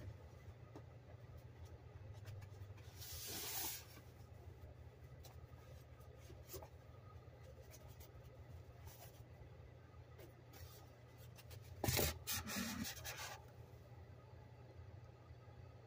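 Faint rubbing and scraping handling noise with scattered light clicks: a longer scrape about three seconds in and a louder one about twelve seconds in, over a low steady hum.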